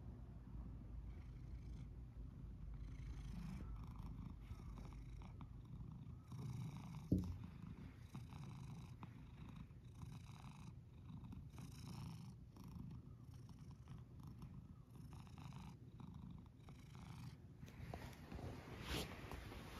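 Domestic cat purring close to the microphone, a faint low rumble that swells and fades in waves about once a second. A single thump about seven seconds in.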